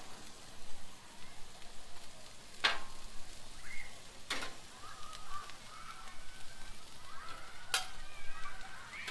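Diced tomatoes sizzling on a hot Blackstone flat-top steel griddle. A metal spatula strikes or scrapes the plate sharply three times as it spreads them.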